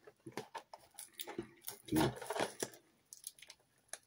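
Hands handling a cardboard miniature-kit box: a string of light taps, clicks and scrapes, loudest about two seconds in.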